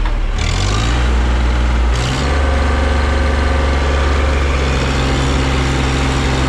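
Mahindra JIVO 365 4x4 compact tractor's diesel engine working hard under load as it pulls against a chained, empty truck, wheels digging into soft dirt. The revs rise about two seconds in, then hold steady.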